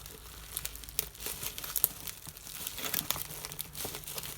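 Packaging wrap crinkling and rustling in irregular crackles as a wrapped doll is handled.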